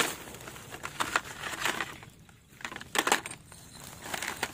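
Rummaging through discarded phones in litter: plastic bags and dry grass crinkling and rustling, with hard clicks of phone bodies knocking together. It comes in several short bursts, with a lull about two seconds in.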